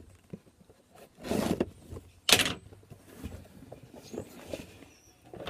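Cardboard subscription box being opened by hand: two short tearing rips, about one and two seconds in, followed by softer rustling and light knocks of cardboard.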